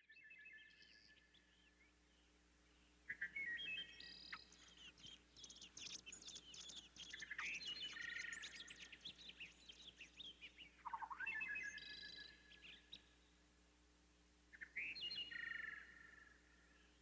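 Songbirds chirping and singing, faint, in several separate phrases, with a longer run of rapid chirps from about four to ten seconds in.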